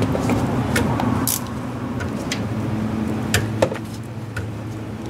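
Scattered metallic clicks and clinks of a hand wrench being fitted and worked on a bolt, over a steady low hum.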